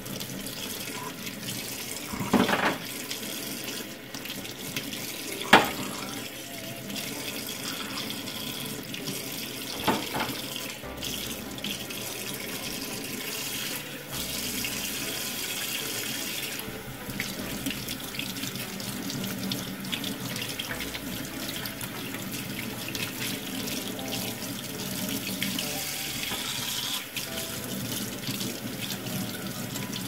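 Kitchen tap running steadily into a stainless steel sink while small baby bottle parts are rinsed and scrubbed under the stream. A few sharp knocks stand out about two and a half, five and a half and ten seconds in.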